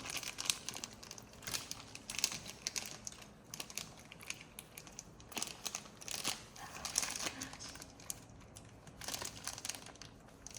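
Irregular crinkling and rustling, as of crinkly material being handled or rummaged through, in short scattered bursts.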